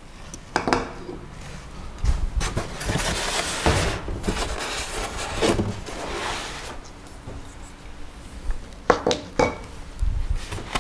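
Unpacking handling noise: scattered light knocks and clatter as carbon-fibre drone landing-gear booms are set down on a table, with rustling and scraping of parts being lifted out of a packing box between them.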